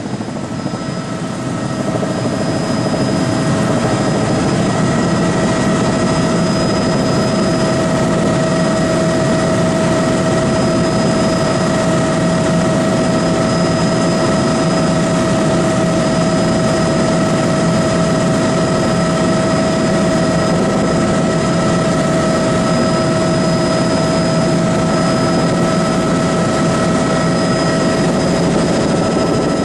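Steady drone of a small aircraft's engine heard from inside the cabin: a loud even rush with a few constant humming and whining tones over it, a little quieter for the first second or two.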